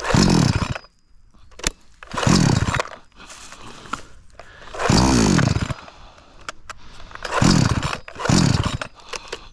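Two-stroke chainsaw being pull-started again and again, about five pulls. Each gives a short burst of engine sound that rises and falls away without the saw staying running, which the owner thinks could be a fuel issue.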